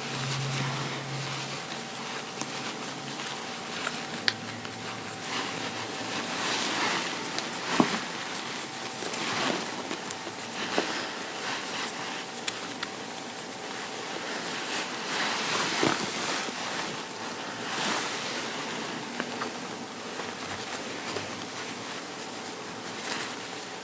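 Fabric rustling as cloth is handled, with swells of rubbing noise and scattered light clicks.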